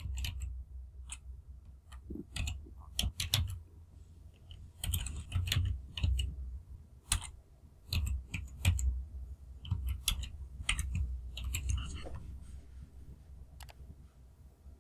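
Typing on a computer keyboard: irregular runs of keystrokes with short pauses between, over a steady low hum.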